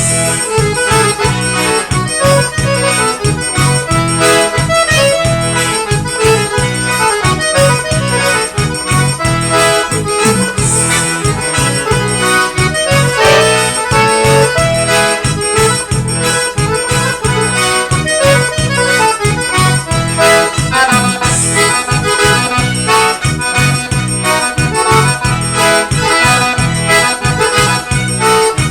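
Forró instrumental played live: an accordion melody over a steady, even beat.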